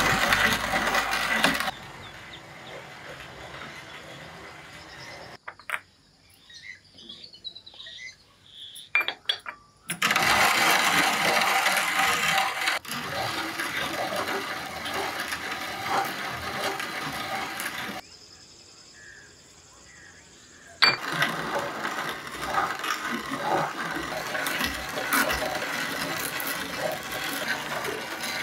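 Hand-cranked cast-iron coffee grinder grinding roasted coffee beans, crunching and rattling as the crank turns, in long stretches. Between them are quieter pauses with a few scattered clicks.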